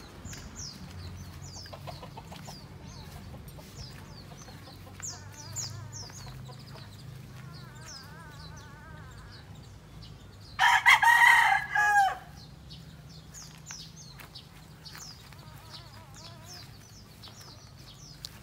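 A gamecock crows once, loud and about a second and a half long, about ten seconds in. Behind it are small birds' short high chirps and a low steady hum.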